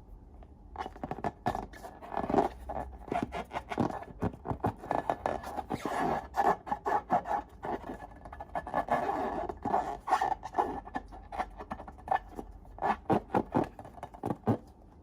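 Slime being mixed and worked by hand or tool: a quick, dense run of sticky clicks and scrapes that starts about a second in and stops shortly before the end.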